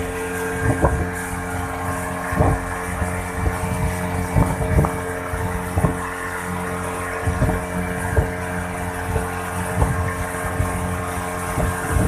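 Motorboat engine running at a steady speed, with irregular thuds every second or so over it.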